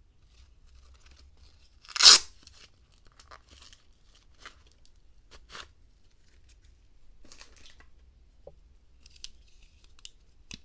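Handling a multitool in its nylon belt sheath: one short, loud rip about two seconds in as the sheath's flap is worked, then scattered soft rustles and light clicks.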